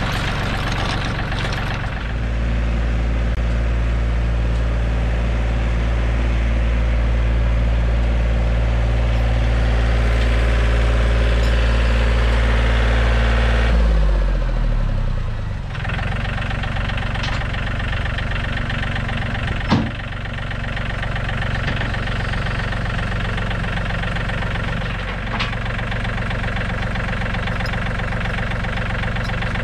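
John Deere 3320 compact tractor's three-cylinder diesel engine running steadily at raised revs, then slowing to a lower steady idle about halfway through. A single sharp knock comes a few seconds after the revs drop.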